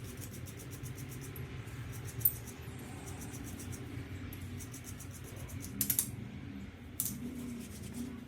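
Ratchet wrench clicking in quick, even runs, broken by a few sharp metal clinks about two, six and seven seconds in.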